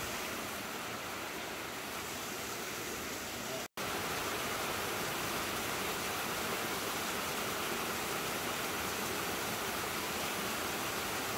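Steady rush of a canyon waterfall. A little under four seconds in it drops out for an instant, then resumes slightly louder.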